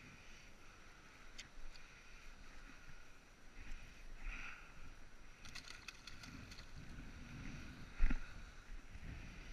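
Ocean surf washing over the rocks as a steady rushing background, with scattered light clicks, a quick run of clicks about six seconds in, and one sharp knock about eight seconds in.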